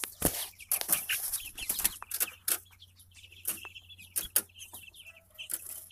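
Red Ranger broiler chicks, about two and a half weeks old, peeping in short high chirps, mixed with many short clicks and rustles.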